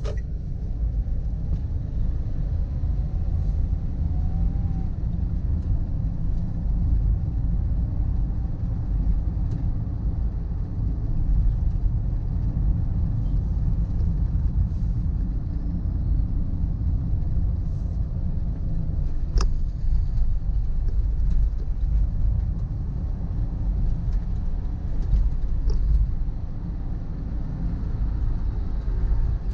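Steady low rumble of a vehicle on the road, engine and road noise while driving, with a single sharp click about two-thirds of the way through.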